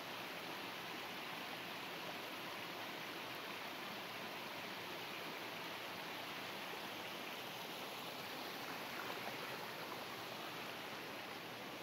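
Steady rush of running water from a creek or cascade, an even hiss without breaks.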